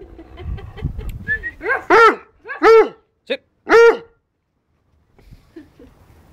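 Old Rottweiler barking: four barks in quick succession, the last three loud, from about a second and a half in to about four seconds in.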